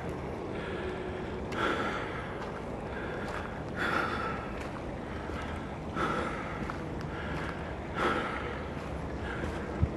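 A walker's breathing close to the microphone, a breath roughly every second with the stronger ones about every two seconds, over a low rumble of wind on the microphone.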